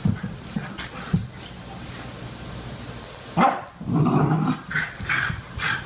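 Small dogs play-fighting, with a run of short yips and growls starting about halfway through, after a quieter start.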